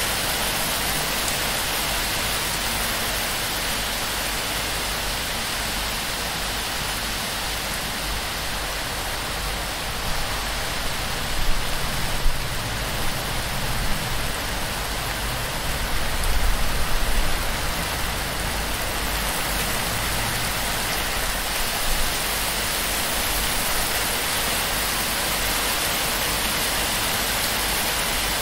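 Heavy torrential rain pouring steadily onto a palm-thatch roof and running off its edge. It is a dense, even hiss, with a few brief louder low swells near the middle.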